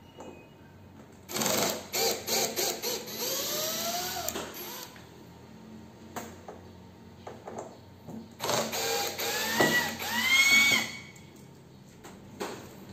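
Small electric power drill running in two spells of a few seconds, each speeding up and then winding down, with a few clicks between: screws being driven out while the washing machine is taken apart.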